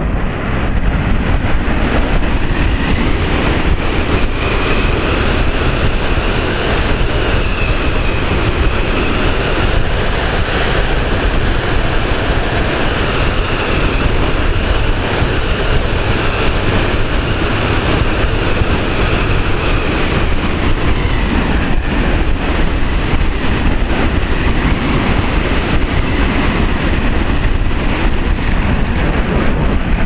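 Loud, steady rush of airflow and wind buffeting on the onboard camera of a radio-controlled glider in flight. A faint wavering whine sits on top of it and fades out about two-thirds of the way through.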